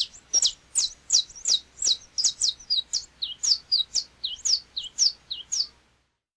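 Saffron finch (canário-da-terra) singing: a fast series of sharp, high notes, each sweeping downward, about three a second, some ending in a short hook. The song stops just before the end.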